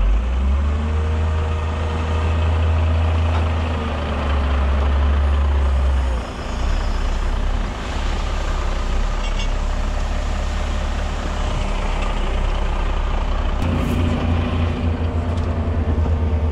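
Heavy diesel engine running steadily during sawdust loading. The sound dips briefly about six seconds in, and a pulsing low throb sets in near the end.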